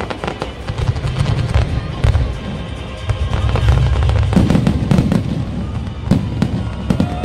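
A dense fireworks barrage: rapid bangs and crackling over a continuous low rumble, which gets heavier from about four seconds in.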